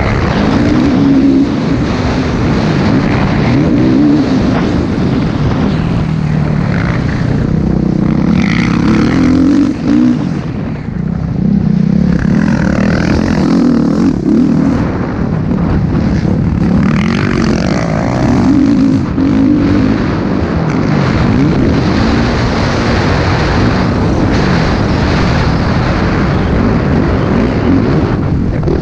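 Motocross dirt bike engine at race speed, heard from on the bike, its revs repeatedly rising and falling as the rider accelerates and shifts along the track. Wind and rushing noise on the microphone run under it.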